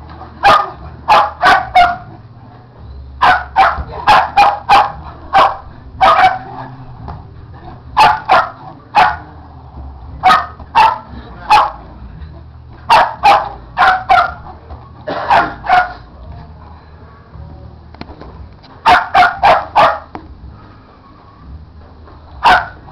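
Sheltie barking excitedly during tetherball play, in quick volleys of three to six sharp barks with a pause of a second or two between volleys.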